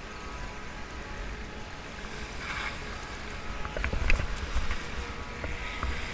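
Wind buffeting the microphone, with a couple of brief swishing scrapes and a cluster of sharp clicks and knocks about four seconds in.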